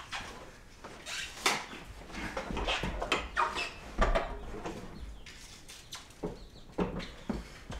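Wooden bypass barn door rolled by hand along its overhead steel track, the rollers giving a few knocks and short squeaks as the door slides.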